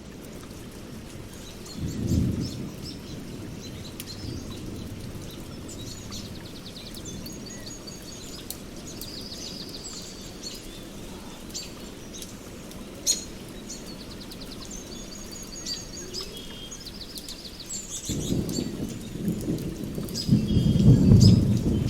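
Steady rain with rolls of thunder, a short one about two seconds in and a longer, louder one near the end, and birds chirping in repeated trills.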